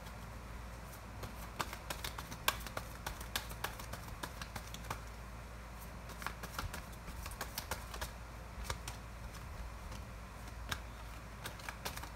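Tarot cards being handled and shuffled by hand: a run of light, irregular clicks and taps, busiest in the first few seconds and again near the end.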